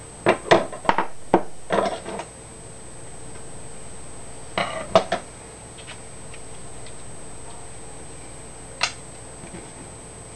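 Metal hand tools, pliers and wire cutters, being set down and handled on a desk: a quick run of clacks and clatters in the first two seconds, another short cluster about halfway through, and a single click near the end.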